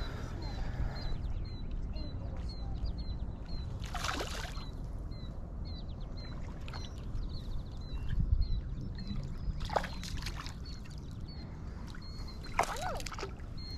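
A small fish splashing at the water's surface as it is played on a fly line, with three sharper splashes about four, ten and thirteen seconds in, over a steady low rumble. A bird chirps about twice a second throughout.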